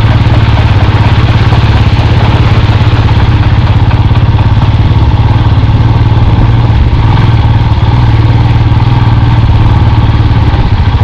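Motorcycle engine running steadily under the rider, close to the microphone, with an even, continuous beat as the bike rolls at low speed over a muddy dirt road.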